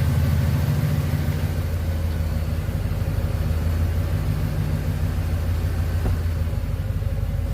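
A 1996 Chevrolet Caprice engine idling steadily with a low, even note, running "like a typewriter".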